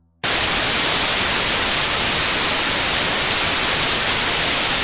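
Television static: a loud, even white-noise hiss that starts suddenly and holds steady.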